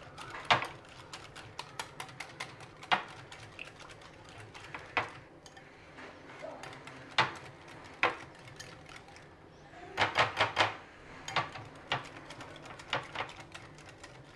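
Wire whisk beating a thin yogurt chutney in a glass bowl, its metal wires clicking and tapping against the glass in irregular strokes, with a fast run of clicks about two-thirds of the way through.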